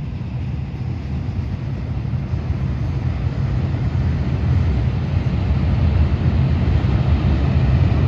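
Passenger train crossing a long steel truss railway bridge: a steady, low rumble of wheels and coaches that grows gradually louder.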